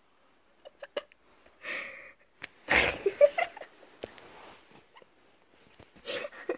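A few soft clicks and a short breathy hiss, then a sharp slap about two and a half seconds in, followed by short gasping vocal sounds.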